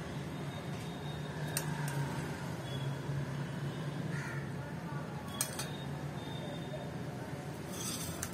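Steady room background with a low hum and a few faint, sharp clicks, with a short burst of noise near the end.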